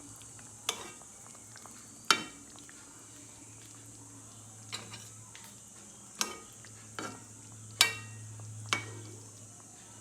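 A serving utensil clinking against a pot and plate as chicken and pork adobo is scooped out: several sharp, ringing clinks a second or two apart.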